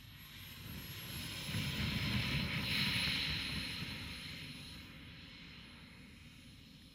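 Engine of a radio-controlled model Viper Jet rolling out on a grass strip after landing, a steady high whine over a rushing noise that swells to a peak about three seconds in and then fades away.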